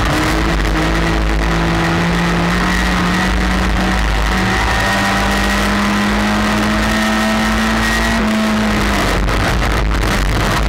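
Race car engine heard loud from inside the cockpit, pulling hard with its pitch climbing steadily for about eight seconds, then falling away near the end as the driver lifts off the throttle.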